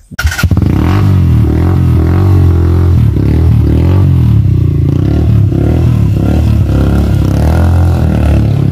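Motorcycle engine running steadily close by. It is loud and starts suddenly just after the start.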